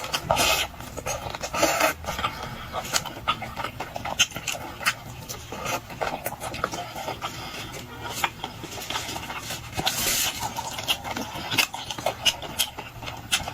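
Close-miked eating sounds: wet chewing and smacking of chewy sea snail meat, with many sharp irregular clicks from the mouth.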